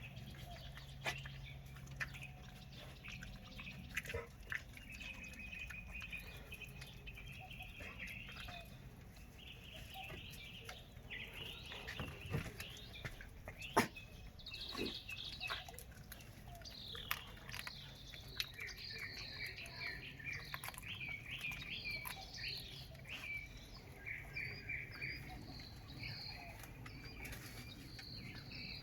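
Small birds chirping over and over in the background, busiest in the second half. A few sharp cracks, the loudest about halfway through, come from a dog crunching a frozen raw tilapia.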